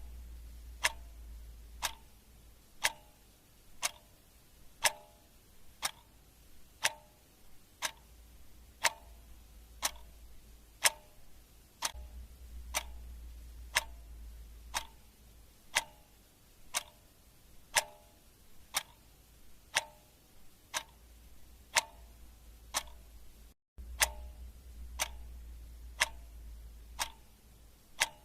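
Clock ticking steadily, about once a second, each tick a sharp click with a short ring. A faint low hum sits underneath, and the sound drops out for a split second about three-quarters of the way through.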